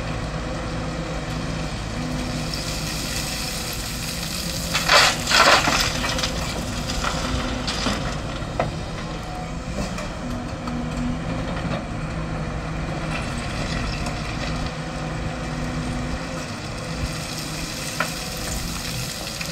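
Sany SY225C crawler excavator's diesel engine running steadily under load while the bucket digs into dry rubble and soil. A loud crunching scrape of the bucket comes about five seconds in, and a few lighter knocks follow later.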